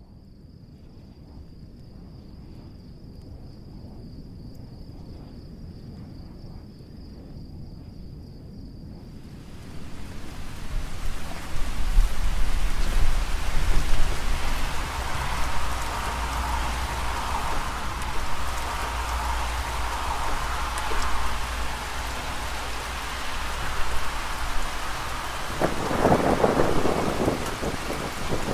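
A faint high insect trill, then from about ten seconds in heavy rain falling with a low rumble of thunder underneath. Near the end a louder rumble swells up.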